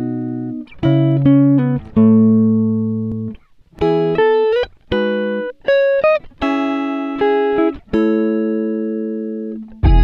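Background music on a plucked guitar: chords and single notes struck one after another, each ringing out and fading.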